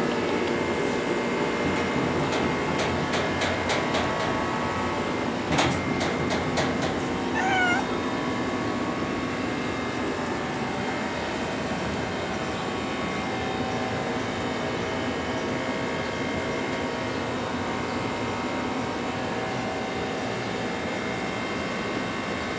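Orange tabby cat meowing once, about seven seconds in, over a steady background hum. A run of sharp clicks and one knock come a few seconds before the meow.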